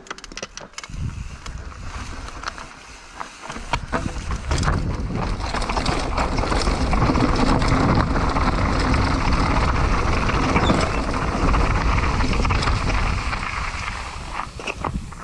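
Mountain bike riding a dirt trail: tyre noise and wind rushing over the microphone, with sharp rattles and knocks from the bike over bumps. The rush grows louder a few seconds in, stays strong through the middle and eases near the end.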